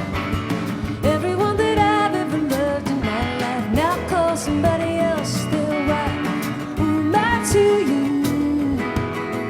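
Acoustic folk band music: strummed acoustic guitar under a melody line that slides between notes.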